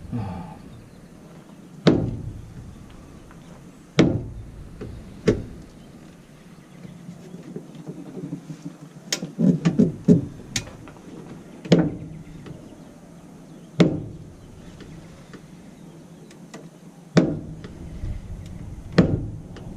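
Heavy thumps and knocks on the steel cab door of a Ford L8000 truck, about eight of them a couple of seconds apart, with a quick run of clicks and rattles midway, as the door and its freshly refitted inner panel and latch are worked.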